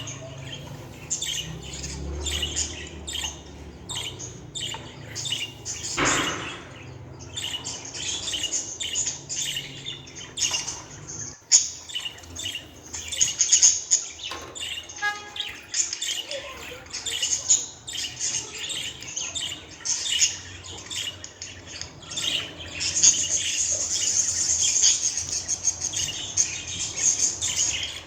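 Budgerigar chirping and warbling in a rapid, unbroken run of short high chirps, turning into a denser, more continuous chatter near the end.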